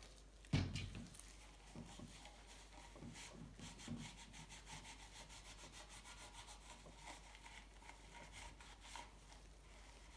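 Hand rubbing on a bicycle frame during cleaning, a few short strokes a second after a single knock about half a second in.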